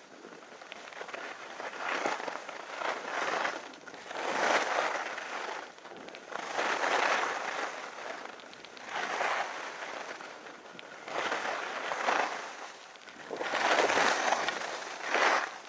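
Skis scraping and carving on packed snow, the crunchy hiss swelling and fading with each turn about every two seconds.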